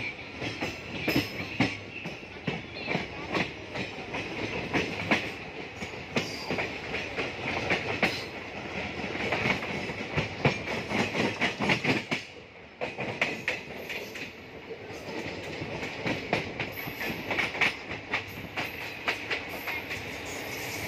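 Passenger train coach running along the track, its wheels clacking irregularly over rail joints over a steady rumble. There is a brief lull about twelve seconds in.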